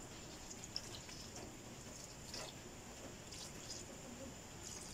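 Vinegar poured from a plastic bottle into a wok of cooking chicken: faint liquid trickling with scattered small drips.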